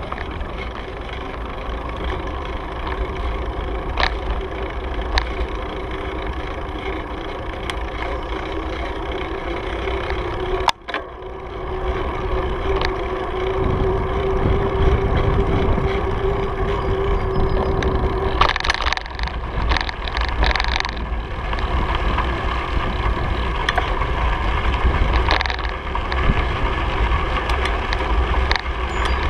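Wind rushing over the microphone of a moving bicycle, with tyre rolling noise and a few knocks over bumps in the trail. A steady hum comes in for several seconds in the middle.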